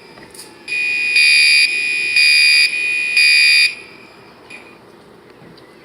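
System Sensor SpectrAlert Classic fire alarm horns sounding, with three loud half-second blasts about a second apart in the three-pulse evacuation pattern, then stopping a little before four seconds in.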